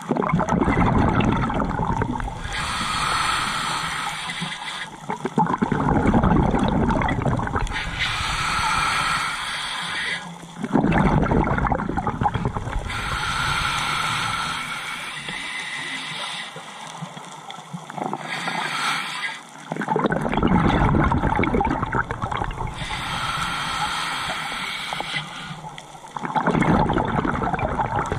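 Scuba diver breathing through a regulator: a hiss on each inhale alternates with a gurgling rush of exhaled bubbles, about one breath every five seconds.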